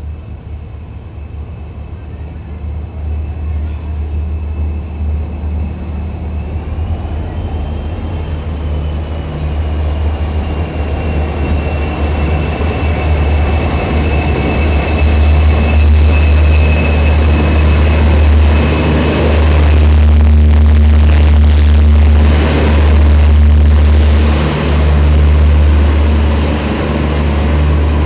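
Diesel-hauled passenger train arriving, its locomotive's heavy engine rumble growing steadily louder as it comes in. A high whine rises briefly about seven seconds in and then slowly falls away, and rattling clatter joins near the end.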